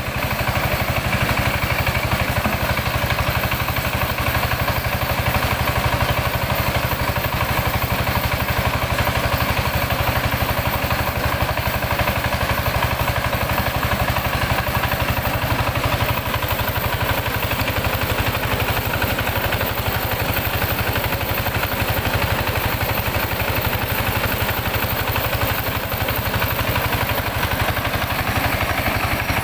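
Engine-driven mini rice huller running steadily at an even speed, a continuous engine sound with a fast, regular pulse.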